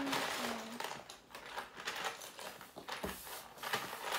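Plastic LEGO pieces clicking and rattling against each other and the plastic tub as hands rummage through a bin of loose bricks: a run of quick, irregular clicks.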